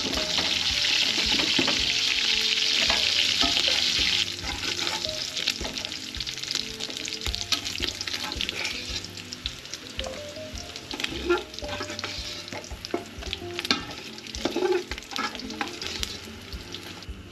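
Seared pork rib pieces sizzling in hot oil in an aluminium pot while a ladle scoops them out, with clicks and scrapes of the ladle against the pot. The sizzle is loud for about the first four seconds, then drops to a quieter crackle.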